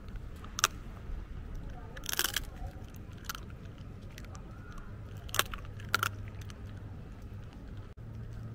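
Shetland sheepdog chewing on a chew, giving a few sharp, short crunches: one about half a second in, a quick cluster around two seconds, then single crunches near three and a half, five and a half and six seconds. A steady low rumble lies underneath.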